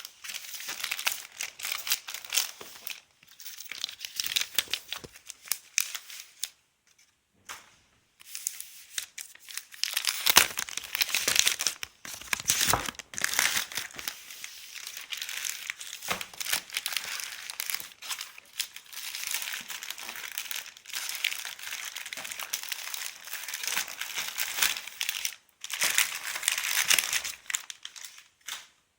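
Toner cartridge packaging being unwrapped: plastic wrapping crinkling and tearing in irregular spells, with a few short pauses.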